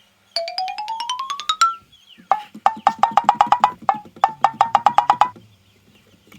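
Cartoon-style sound-effect music. It opens with a quick rising run of short plucked notes. Then comes a rhythmic pattern of short wood-block-like taps, played as two similar phrases, and it stops about a second before the end.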